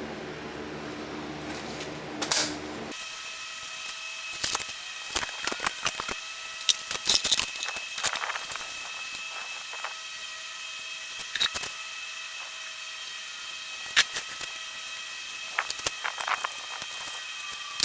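Scattered clicks, clinks and knocks of hand tools and metal parts being handled during an engine teardown, over a faint steady high-pitched whine. A low background hum stops abruptly about three seconds in.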